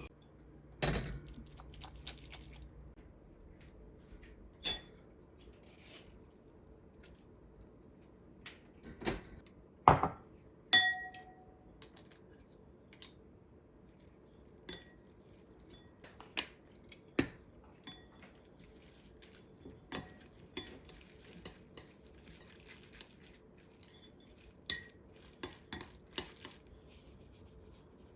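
Dishes and metal kitchen utensils clinking and knocking now and then during home cooking, with one short ringing clink about eleven seconds in.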